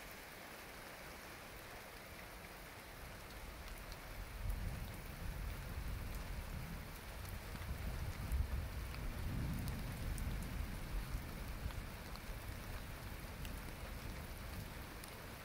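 Steady rain falling, with scattered drop ticks. A low rumble of thunder swells from about four seconds in and dies away near the end.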